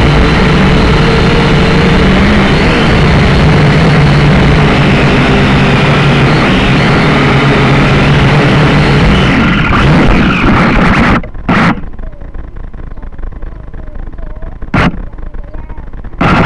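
Syma X5C-1 quadcopter's four motors and propellers heard close up from its onboard camera, a loud steady buzz. About eleven seconds in it cuts off abruptly as the drone ends up upside down, and three short sharp bursts follow.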